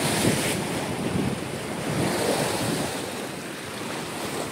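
Sea surf breaking and washing against a rocky shore, with wind buffeting the microphone.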